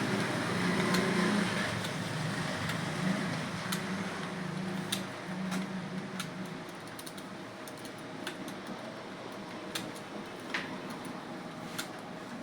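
Keystrokes on a computer keyboard during a typing test: irregular sharp clicks, a key at a time, over a steady background hum, with a low drone in the first half.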